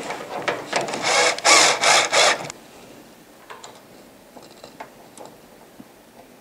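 Cordless drill with a Phillips bit driving a screw into the dehumidifier's sheet-metal cover, in four short grinding bursts over about two and a half seconds. After that it is quiet except for a few faint clicks.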